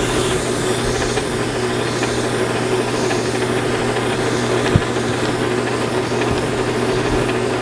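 Metal lathe running steadily with a constant hum, while abrasive paper is held against a spinning brake master cylinder piston to smooth out scratches. A single sharp knock sounds just before five seconds in.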